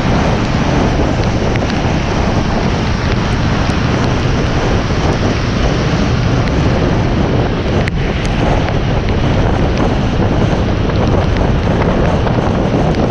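Steady wind rush and rain on a hood-mounted action camera driving at speed on a wet road, with a heavy low rumble of wind buffeting and hissing spray. A single sharp tap comes about eight seconds in.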